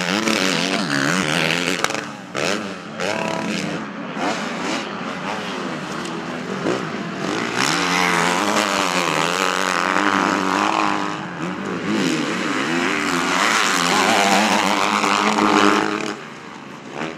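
Several motocross bike engines revving as the bikes race past, the pitch climbing and falling with each throttle change and gear shift.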